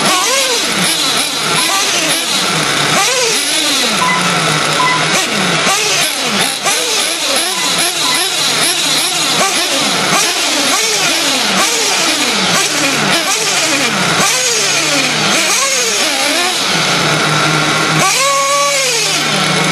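Several Traxxas Slash RC short-course trucks racing, their motors whining up and down in pitch over and over as they accelerate and brake around the track, overlapping one another. One truck is loudest for a couple of seconds near the end, over a steady low hum.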